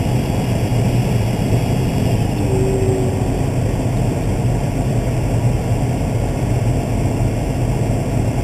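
Case IH 305 Magnum tractor's diesel engine running at a steady speed, heard as a continuous low drone from inside the cab.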